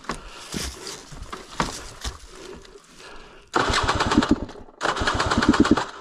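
KTM 300 XC-W two-stroke engine being cranked on its electric starter in two bursts of about a second each, a rapid even chugging that stops without the engine catching: the stalled bike is failing to restart. Quieter shuffling and clicks come before the cranking.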